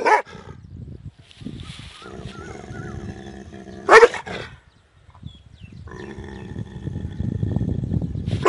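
A big black dog barking aggressively: loud single barks at the start, about four seconds in and again at the end, with low growling in between.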